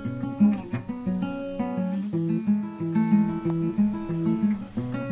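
Acoustic guitar music, plucked and strummed notes in a steady repeating pattern.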